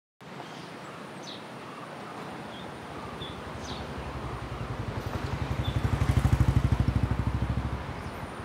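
Birds chirping over a steady background while a motor vehicle draws near, passes loudest about six seconds in with a low pulsing engine rumble, and fades away.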